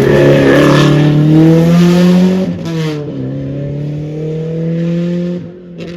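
Rally car's engine accelerating hard past, its pitch climbing, then a sharp drop at an upshift about two and a half seconds in. It pulls up through the next gear again, quieter as it moves away, with a short lift near the end.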